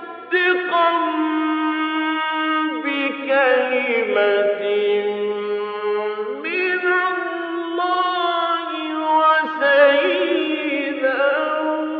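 A male Quran reciter chanting in the melodic mujawwad style: one voice holding long, ornamented notes that glide up and down in pitch, with a new phrase starting just after the opening.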